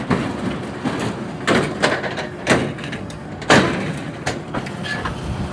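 Excavator tearing scrap metal off old farm machinery: a string of about five loud metal crashes and scrapes over the steady rumble of the machine's engine.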